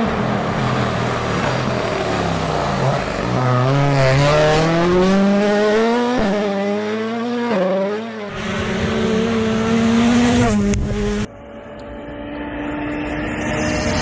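Toyota Yaris WRC Rally1 hybrid rally car's 1.6-litre turbocharged four-cylinder at full throttle, its engine note climbing in steps through gear changes and dropping off again, over several passes spliced together. It goes quieter and steadier about eleven seconds in, then swells again near the end.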